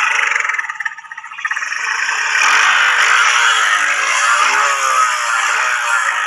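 Four-stroke motorcycle engine being revved with a rough, snoring 'ngorok' note while it is tuned. The revs climb about two seconds in and then hold high, rising and falling a little.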